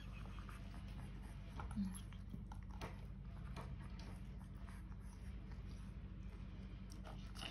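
Kitten eating dry kibble from a plastic bowl: quiet, scattered crunching clicks over a steady low hum, with one short low-pitched sound about two seconds in.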